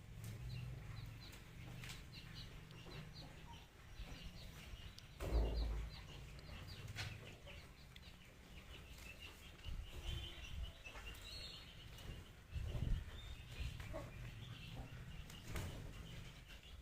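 Small birds chirping over and over in short high notes, with occasional low thumps and rustling, the loudest thump about five seconds in.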